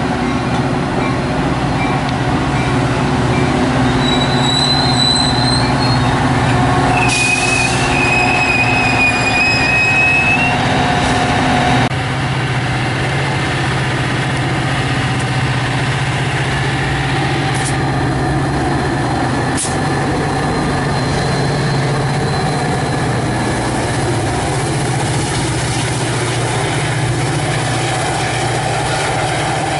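Metra bilevel commuter train passing, with a steady rumble of wheels on rail and the low hum of the diesel locomotive pushing at the rear. High wheel squeals ring out about four seconds in and again about seven seconds in.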